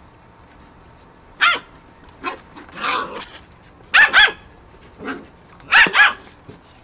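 Eight-week-old Goldendoodle puppy barking: a string of short, high-pitched barks, loudest as two quick double barks about four and six seconds in.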